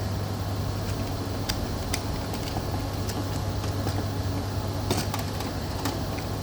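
Steady low mechanical hum, with scattered light clicks and rattles of small crimp connectors being handled.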